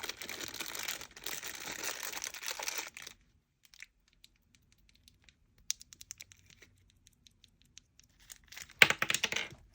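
Plastic packaging crinkling and tearing open for about three seconds, then a scatter of faint light clicks and a short burst of rustling near the end.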